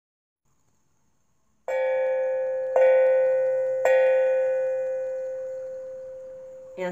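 A bell struck three times, about a second apart, each strike ringing at the same pitch and fading slowly.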